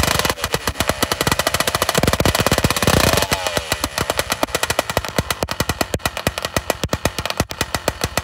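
Motorized bicycle's small two-stroke kit engine running after sitting for over a year, revved up for the first three seconds or so, then dropping back to a steadier, quieter rapid firing.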